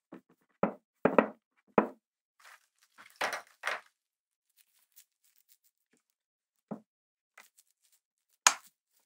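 Handling knocks and clicks from a Pentax ME Super camera body being worked by hand after reassembly: three sharp knocks in the first two seconds, a softer rustling stretch around three to four seconds, then a few scattered clicks with a sharp one near the end.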